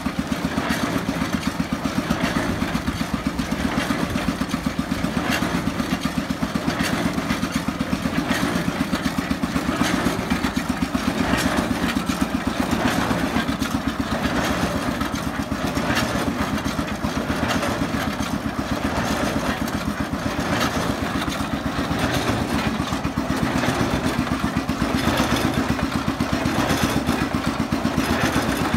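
Moteur Bernard single-cylinder stationary engine running steadily with a fast, even beat, driving an Aebi ABC 45 straw press by a flat belt; the press's mechanism adds knocks and a slow regular swell as it works.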